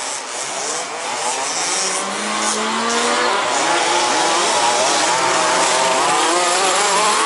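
Several 1/5-scale radio-controlled off-road buggies racing, their small two-stroke petrol engines running together with pitches that rise and fall as they accelerate and brake, growing louder over the first couple of seconds.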